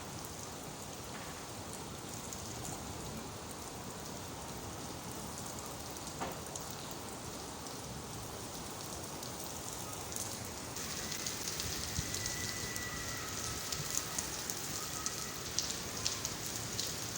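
Steady rain falling, an even hiss; from about eleven seconds in it turns brighter, with many sharp drop ticks.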